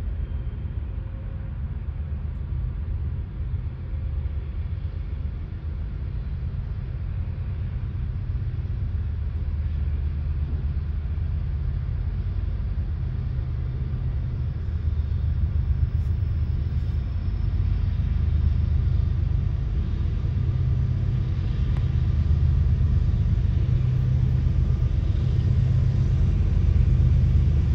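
Steady low rumble of approaching GE diesel locomotives, growing slowly louder as they draw nearer.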